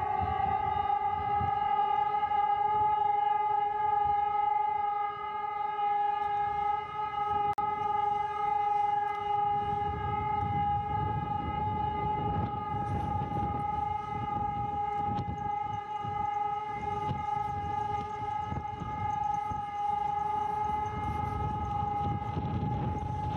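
Civil-defence alarm siren holding one steady, unbroken tone just after winding up to pitch. A low rumble of background noise underneath grows louder in the second half.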